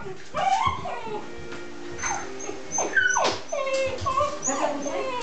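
A dog whining and yipping over and over in short, high cries that fall in pitch, the eager whining of a dog waiting at the door for its owner.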